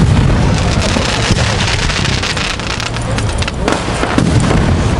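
Aerial fireworks bursting, with a dense crackle of many small pops over a low rumble of booms.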